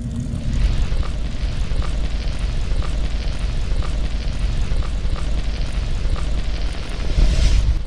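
A dense, rumbling cinematic sound effect for a logo intro, like a fire or eruption, with a faint short blip about once a second. It swells louder just before the end.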